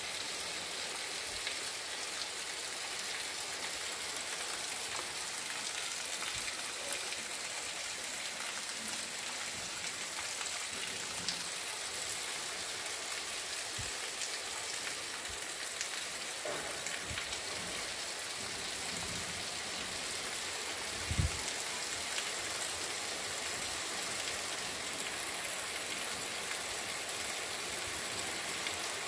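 Heavy rain falling steadily on a wet cobblestone street, an even hiss with rainwater running over the stones. A brief low thump about three-quarters of the way through.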